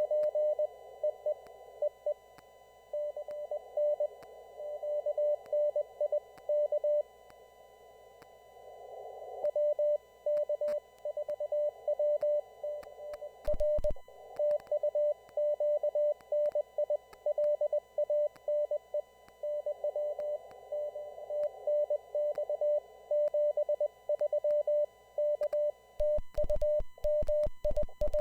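Morse code (CW) heard through an amateur radio receiver: a single tone keyed on and off in dots and dashes over narrow-filtered receiver hiss. The signal strength varies, and there are gaps of hiss only. Near the end a run of sharp clicks and low thumps comes with the keying.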